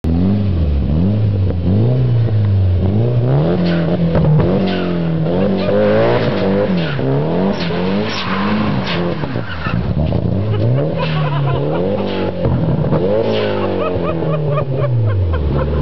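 Turbocharged Mitsubishi engine in an old Nissan Sentra, accelerating hard and revving up and down over and over, its pitch climbing and dropping every two to three seconds. Short sharp cracks are mixed in through the middle of the run.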